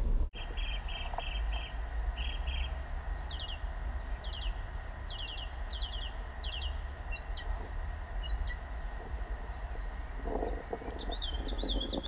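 Northern mockingbird singing: a string of short high phrases, each repeated several times before it switches to another. Near the end come two rising whistled notes and then a warbled phrase, all over a steady low background rumble.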